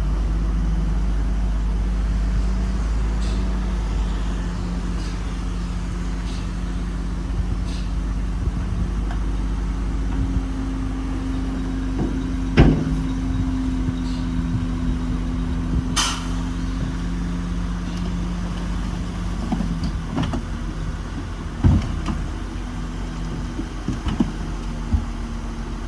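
Diesel engines of heavy earthmoving machinery running steadily, their pitch shifting slightly with load, with occasional sharp knocks and clanks; the loudest knock comes about halfway through.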